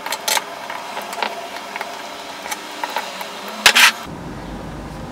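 Light metallic clicks and taps of a folding multi-tool worked against the body of a Holley 4150 carburetor, with a louder double clack of metal a little before four seconds in.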